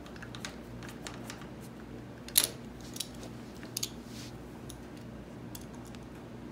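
Small metallic clicks and clinks as a brake-line clamp is fitted and a hand tool is handled on an ATV's swingarm and frame, the sharpest clink about two and a half seconds in and a quick pair a little later. A steady low hum runs underneath.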